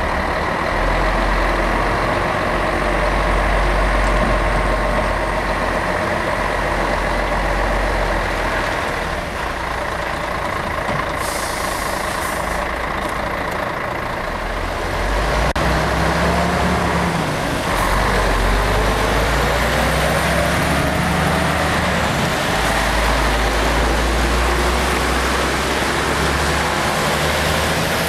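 Volvo FH truck's diesel engine running as the truck pulls away and manoeuvres, with a brief air hiss about eleven seconds in. From about sixteen seconds the engine note rises and falls as it revs through the gears.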